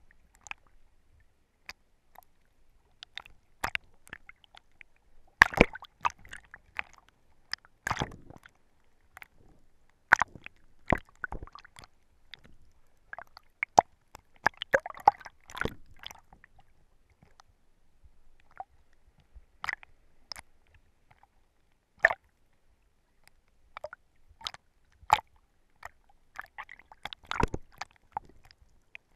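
Water sloshing and splashing against a GoPro's waterproof housing as it is carried just under the surface: irregular sharp clicks and short splashy bursts, with quiet gaps between.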